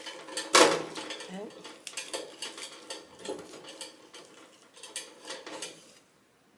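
Wüsthof chef's knife slicing crispy chicken off a vertical gyros grill's meat stack, the blade scraping through the crust and clinking against the metal, with one sharp loud clink about half a second in. The scrapes come in short separate strokes and thin out toward the end.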